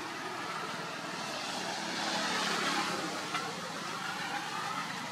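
A vehicle passing by: a rushing noise that swells to its loudest in the middle and then fades.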